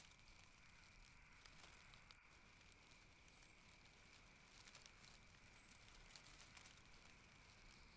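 Near silence: a faint crackling hiss with a steady, faint high-pitched tone.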